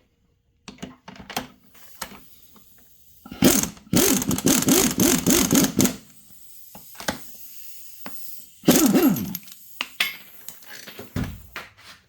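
Handheld power tool, likely an impact driver, running in two bursts while driving a pressing jig on the steering stem bearing races of a dirt bike. The first burst is about two and a half seconds long, starting around three seconds in. A shorter burst follows near the three-quarter mark, its pitch falling, with scattered clicks and clanks of metal parts in between.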